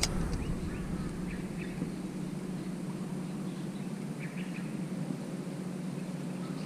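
Shimano Stradic FK 1000HG spinning reel: a sharp click as the bail closes at the start, then a steady low hum while the lure is reeled in, with faint scattered bird chirps.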